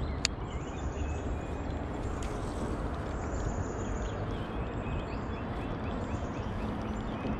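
Steady outdoor background noise, with a small bird calling a quick series of short, repeated chirps in the second half. A single sharp click comes just after the start.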